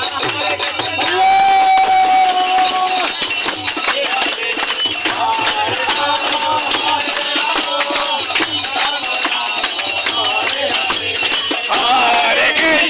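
Group devotional chanting (harinaam sankirtan): several male voices sing together over a two-headed mridanga barrel drum beating a steady rhythm, with jingling brass karatala hand cymbals and hand clapping. One voice holds a long note about a second in.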